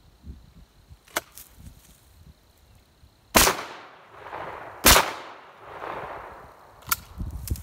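Winchester 101 over/under 12-gauge shotgun fired twice, one barrel then the other, about a second and a half apart, each shot echoing. A sharp click comes about a second in and another near the end.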